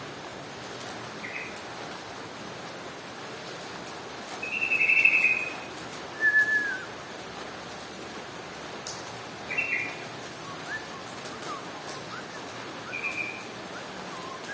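Yellow-vented bulbul (trucukan) giving short whistled chirps and phrases every few seconds, the loudest about four to five seconds in, over a steady background hiss.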